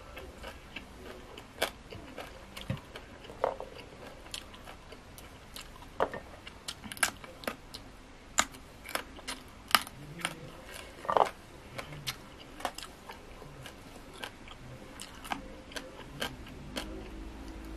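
A person chewing and crunching food, with many sharp, crisp crunches and mouth clicks scattered irregularly through it, including bites into raw pea eggplants.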